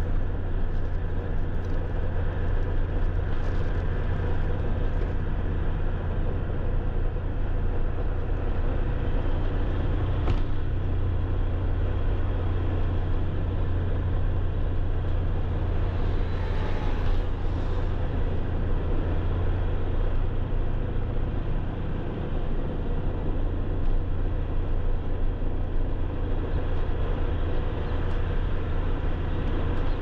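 Steady rumble of motor traffic, strongest low down and even throughout, with a brief higher-pitched swell a little past halfway.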